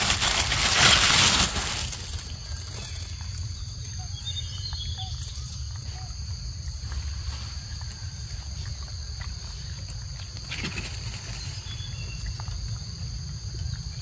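Outdoor ambience: a loud rustling noise in the first second or two, then a steady low rumble under a continuous high-pitched drone, with a few faint short calls and clicks.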